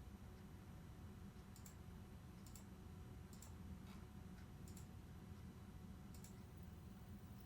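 Five faint, sharp clicks at irregular intervals of about a second, over a low steady hum.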